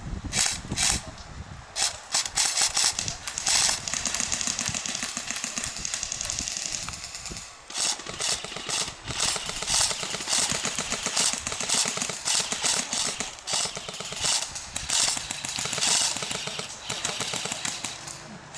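Airsoft guns firing in rapid full-auto bursts, a fast clattering rattle that keeps starting and stopping, with a short lull just before the middle.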